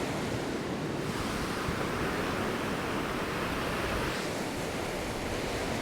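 Surf breaking and washing up a sandy beach, a steady rushing wash of waves, with some wind on the microphone.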